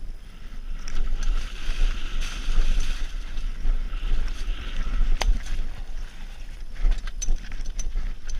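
Mountain bike ride on a dirt and leaf-covered trail: wind buffeting the camera's microphone with a heavy rumble, tyres hissing over the ground, and scattered rattling clicks from the bike, one sharp click about five seconds in.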